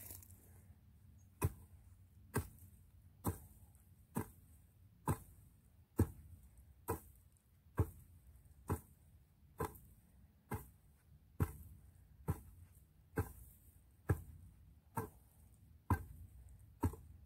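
Garden hoe chopping into soil, a sharp strike roughly once a second in a steady rhythm, digging a shallow trench.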